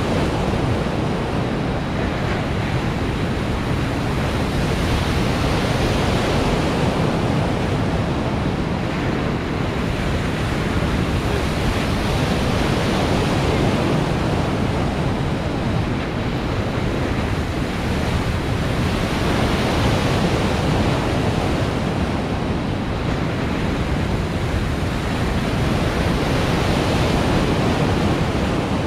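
Water of an artificial surf wave pool rushing and breaking as a steady loud wash, swelling and easing every several seconds, mixed with wind on the microphone.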